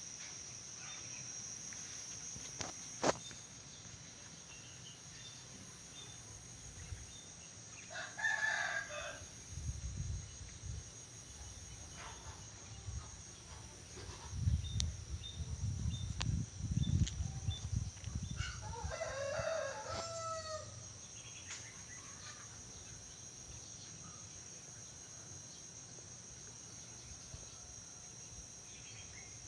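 A rooster crowing twice, about eight seconds in and again about nineteen seconds in, over a steady high-pitched insect drone. A sharp click comes about three seconds in, and low rumbles come between the crows.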